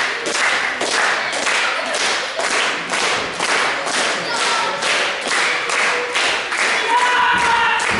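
Wrestling crowd clapping in rhythm, about two claps a second, with voices shouting or chanting along toward the end.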